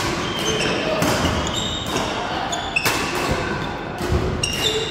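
Doubles badminton rally: rackets strike the shuttlecock about once a second. Between the hits, shoes squeak briefly and feet thud on the wooden sports-hall floor, echoing in the large hall.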